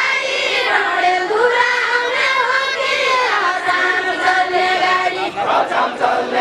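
Women's voices singing a Deuda, the Far-Western Nepali folk song, in a long bending melody. About five seconds in, the singing gives way to crowd noise.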